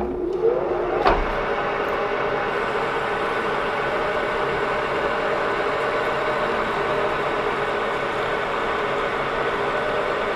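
Acra-Turn manual lathe starting up: a rising whine as the spindle comes up to speed within about a second, with two sharp clicks, then the machine running steadily with a hum and several steady gear tones.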